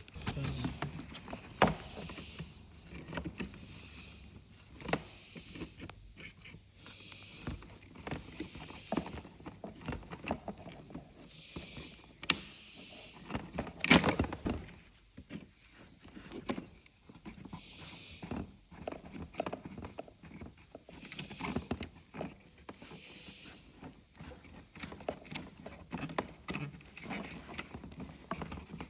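Scattered clicks, knocks and scrapes of hands working a stiff fuel hose off a car's in-tank fuel pump assembly, with one sharp knock about halfway through.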